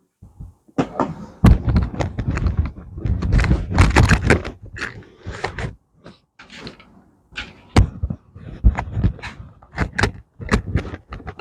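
Irregular knocking and clattering of tools and parts being handled in the workshop. It is dense for the first few seconds, then gives way to single sharp knocks about a second apart.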